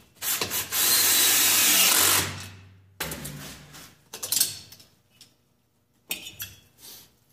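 A power tool runs for about two seconds, then a few short metallic clicks and knocks from tools working a stud into a snowmobile track.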